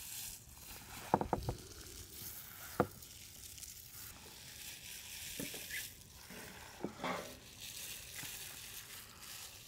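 Gloved hands mixing marinated fish pieces into a thick flour-and-egg batter in a large steel tray: wet squishing and crackly rustling, with a few sharp clicks, a cluster about a second in and another near three seconds.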